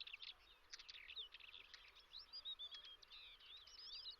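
Faint twittering of small birds: many quick, high chirps overlapping, growing denser toward the end.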